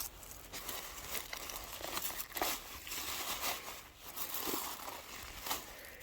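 Irregular rustling and crinkling with scattered short clicks, like something being handled or crumpled.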